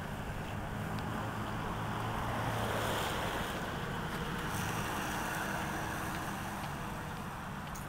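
Steady outdoor rumble of an engine running, with wind noise on the microphone, swelling slightly about three seconds in.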